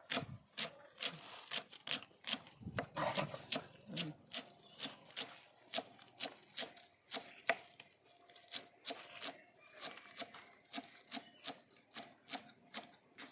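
Knife chopping on a wooden cutting board, steady crisp knocks about two to three a second.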